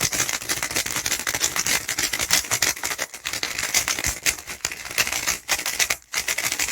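Valk Elite M magnetic 3x3 speedcube being turned rapidly by hand: a dense, continuous run of quick plastic clicks as its layers snap into place.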